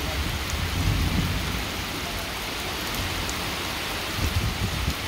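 Heavy rain pouring steadily onto thatched roofs, plants and waterlogged ground, a dense even hiss with a low rumble underneath.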